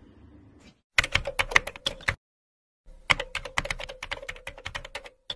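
Keyboard typing sound effect for text typing itself onto a title card: rapid clicks, about ten a second, in two runs of about one and two seconds with a short silent gap between.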